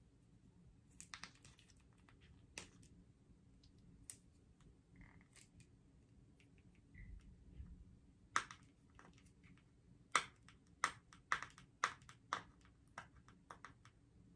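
Hands handling a sealed cosmetic powder container and trying to open it: scattered light clicks and taps, then a quicker run of sharp clicks from about eight seconds in.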